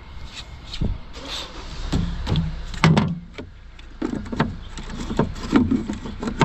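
Irregular clicks, knocks and clunks, with a few heavier low thumps partway through, as of gear being handled and set down.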